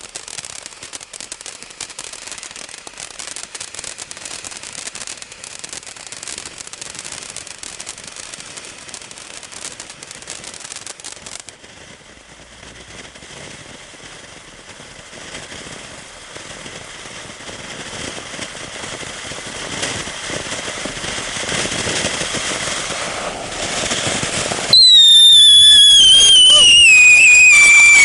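Winda Ballerina's Ball fountain firework burning: first a crackling shower of sparks, then a steadier hiss that slowly grows louder. About 25 seconds in, a sudden, very loud, ear-piercing whistle starts and slowly falls in pitch.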